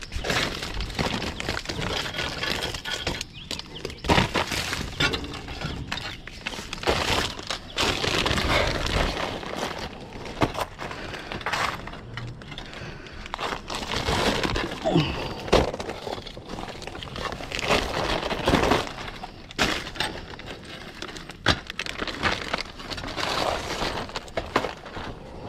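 Roof tiles clattering and clinking, with irregular sharp knocks and scraping as they are stepped on and handled.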